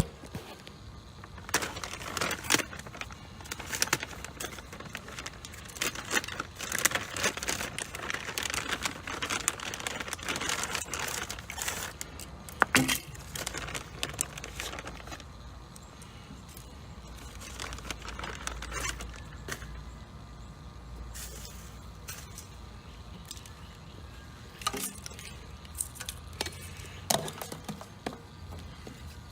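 A new hard start kit being handled and unwrapped: plastic packaging crinkling and rustling, with clicks and small metal clinks of parts and tools. The rustling is densest in the first half.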